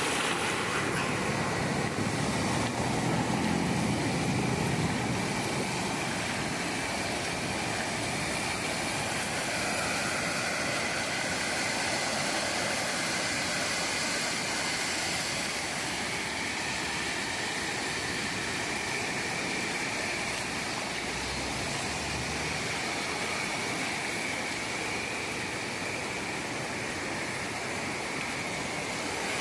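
Ocean surf: small waves breaking and washing up the beach in a steady rush, a little louder in the first few seconds.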